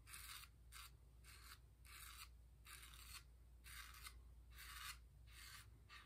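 Ever Ready 1914 single-edge safety razor scraping through lathered stubble on the neck in short, faint strokes, about nine in six seconds.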